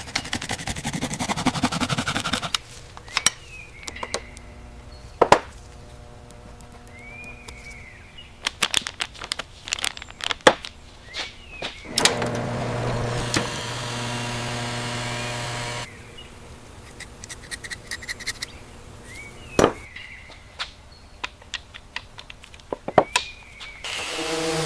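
Workshop tool sounds: a run of sharp clicks and knocks of metal parts and tools being handled, with a steady machine hum for about four seconds in the middle.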